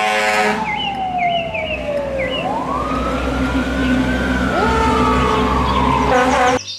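Fire engine sirens on the move. A wail falls, climbs and slowly falls again while a second wail rises to join it, with a quick repeating yelp near the start, over a low rumble of engines and traffic. The sound cuts off suddenly just before the end.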